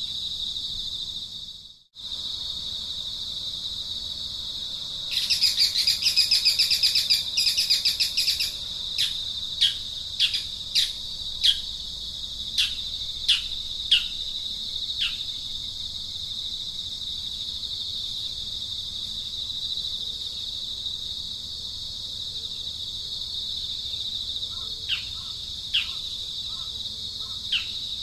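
Steady high-pitched insect drone with birds calling over it: a fast buzzy trill from about five to eight seconds in, then a run of short, sharply falling chirps, and more falling chirps near the end. The sound drops out briefly about two seconds in.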